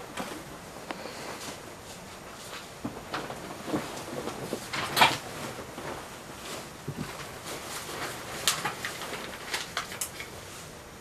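Scattered light knocks and rustles of someone shifting on a bed and handling a notebook and pen, with the sharpest knock about five seconds in and a few more between eight and ten seconds.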